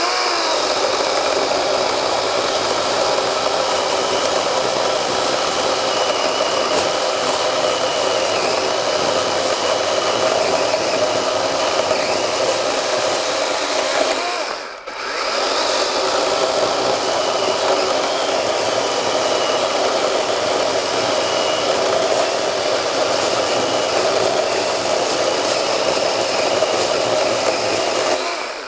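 Battery-powered DeWalt 12-inch 20V top-handle chainsaw running under load, cutting through hard black locust wood. The sound drops away briefly about halfway through, then the saw runs on steadily again.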